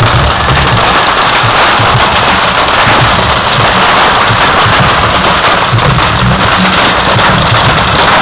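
Fireworks going off in a loud, dense, unbroken crackle and hiss, as fountains of sparks and rockets fire together.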